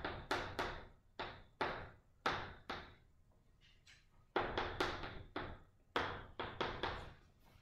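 Chalk tapping and scraping on a chalkboard as numbers and symbols are written: a run of sharp taps, with a pause of about a second and a half near the middle.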